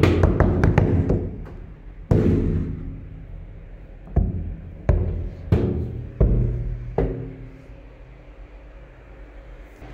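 Resonant drum-like strikes: a fast run of hits that stops about a second in, then six single booming strikes spread over the next six seconds, each ringing and dying away.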